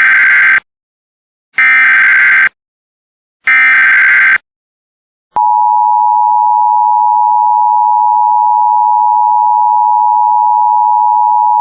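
Emergency Alert System SAME header: three short bursts of screechy digital data tones, about a second apart. About five seconds in, a single steady attention tone starts and holds.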